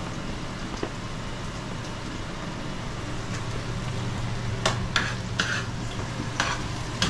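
Sliced karela (bitter gourd) frying in oil in a non-stick frying pan, a steady sizzle. From about four and a half seconds in, several sharp clacks of utensils and cookware being handled over the sizzle.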